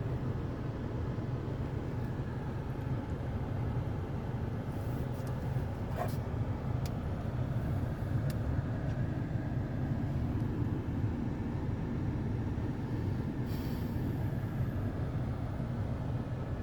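Steady low rumble of wind and surf at the seashore, with a few faint clicks in the middle and a brief hiss near the end.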